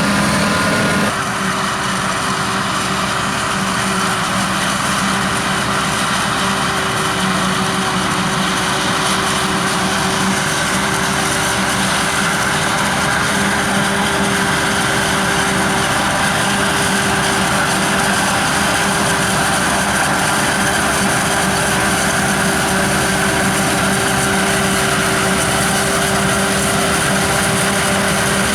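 Heavy farm machinery running steadily at a maize harvest: a constant engine hum under a broad rushing noise. The sound changes abruptly about a second in, then holds steady.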